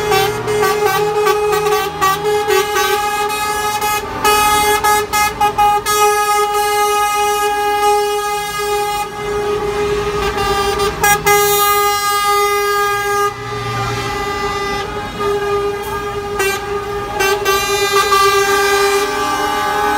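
Lorry air horns blaring as trucks in a convoy pass, several steady horn tones overlapping in long held blasts with brief gaps, over the low running of the trucks' diesel engines.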